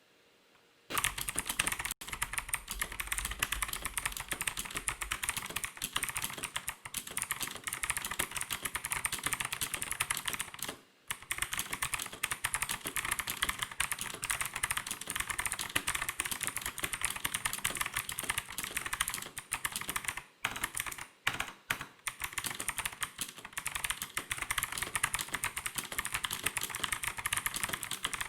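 Fast typing on a Gigaware K26 full-size mechanical keyboard: a dense, steady stream of key clicks that starts about a second in, with a brief pause near the middle and a few short breaks later.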